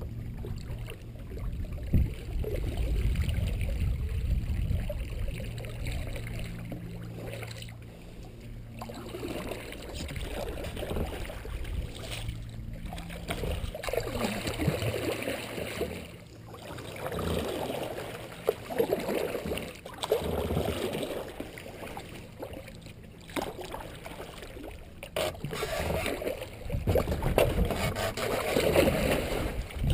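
Kayak paddle strokes dipping and splashing in the water, one every couple of seconds, growing louder in the second half.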